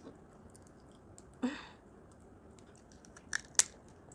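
Scattered sharp clicks and cracks of a cooked crab's hard shell being pried and cracked open by hand, with a short louder crunch about a second and a half in and two sharp cracks near the end.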